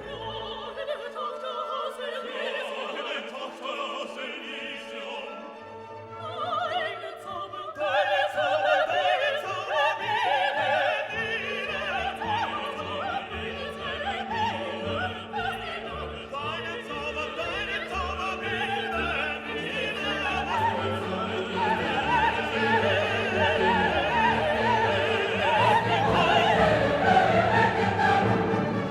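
Classical music: an orchestral piece with operatic singing, growing fuller and louder about eight seconds in.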